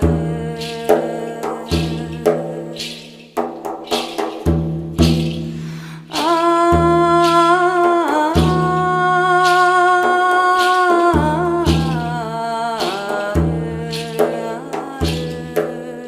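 Music: a wordless humming voice holds long notes over a steady, regular drum beat.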